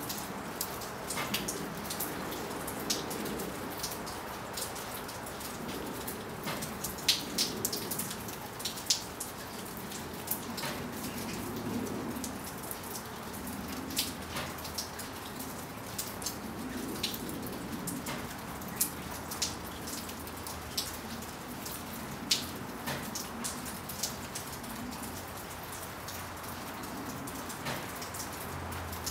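Steady winter rain falling, with individual drops tapping sharply and irregularly close by.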